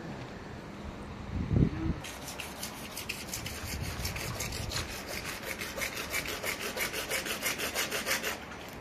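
A bare hacksaw blade sawing a PVC pipe by hand, in fast, even strokes about four or five a second, which stop abruptly near the end. One loud thump comes about a second and a half in, before the sawing starts.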